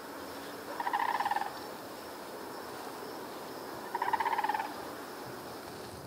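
An animal calling twice, about three seconds apart: each call is a rattling, rolling note under a second long, over a steady outdoor background hiss.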